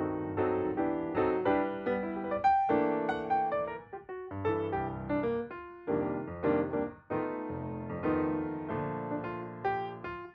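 Background piano music: a continuous run of notes and chords.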